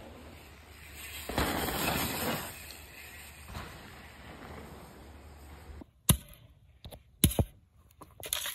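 Mountain bike rolling through dirt jumps, its tyres rushing over the dirt loudest from about one to two and a half seconds in. Then a metal shovel striking and scraping packed dirt in a few sharp knocks near the end.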